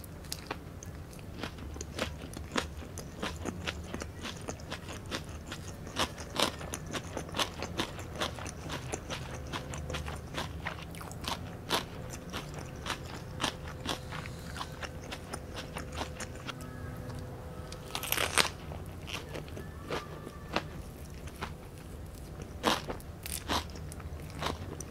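Close-miked biting and chewing of fresh Vietnamese rice-paper spring rolls filled with lettuce, many small crisp crunches one after another, with a louder burst about eighteen seconds in.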